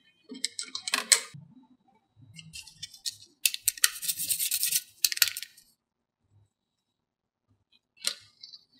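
Light clicks and rattles in short bursts, the densest run in the middle, then about two seconds of near quiet before one brief burst near the end.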